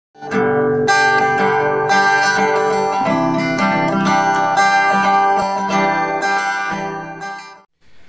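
Intro music on a plucked string instrument, new notes struck about once a second, fading out shortly before the end.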